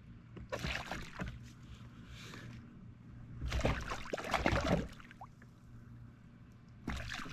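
Water splashing at the side of a kayak as a hooked snapper is brought aboard, in three short bursts, the loudest about three and a half seconds in.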